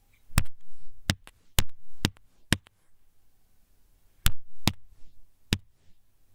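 Sharp knocks made by hand as foley, recorded live to picture: five in quick succession, a pause of about a second and a half, then three more.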